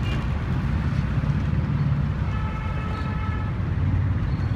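Steady low rumble of road traffic and engines. Midway, a vehicle horn sounds once for about a second.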